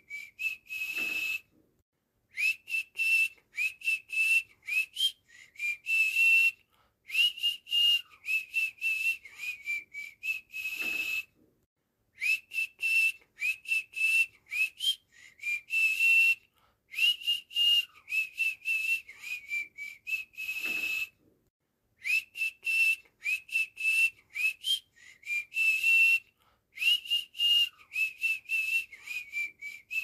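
A short whistled tune of quick, clipped notes with little upward slides, played over and over in phrases of about four seconds with brief pauses between them: a repeating whistle loop for cockatiels and parrots to learn.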